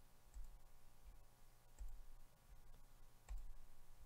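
Computer mouse clicking, three short clicks about a second and a half apart, over faint room hum.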